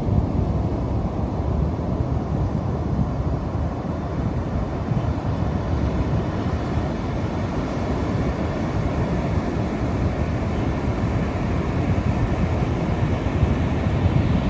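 Steady low rumble of wind buffeting the microphone, mixed with the wash of ocean surf on a beach.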